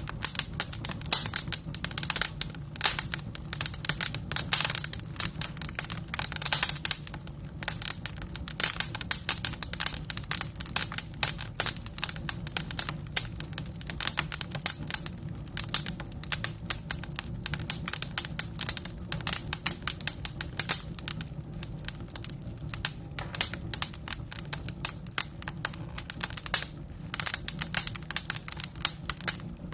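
Burning firewood crackling: dense, irregular pops and snaps all through, over a low steady rumble.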